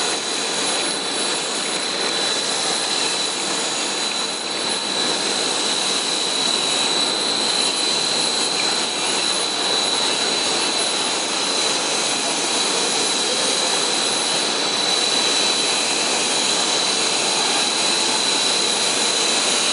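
Aluminium-plastic composite pipe extrusion line running: a steady rushing machine noise from its motors and pumps, with a constant high whine.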